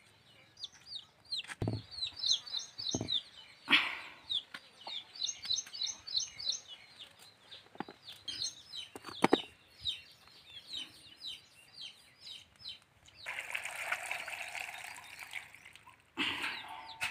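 Chickens chirping and clucking in rapid, high, short calls. A few sharp knocks are heard along the way, and near the end there are a couple of seconds of rasping, rustling noise.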